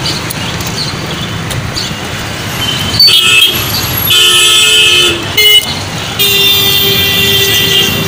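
Street traffic rumbling, then vehicle horns honking: a short toot about three seconds in, a longer blast of about a second, another brief toot, and a long steady blast of about two seconds near the end.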